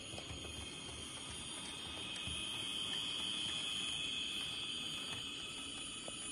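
HO scale Athearn Genesis SDP40F model diesel locomotive running on the track: a steady whir of its motor and gear drive with wheel-on-rail noise, growing louder toward the middle and easing a little near the end.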